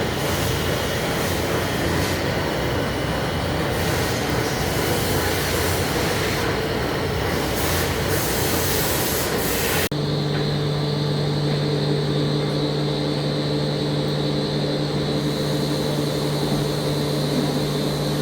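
Heavy-duty lathe turning a large steel part: a loud, rough, grinding machining noise, which about ten seconds in cuts abruptly to a steadier drone with a strong low hum and a few fixed tones from the machine's drive.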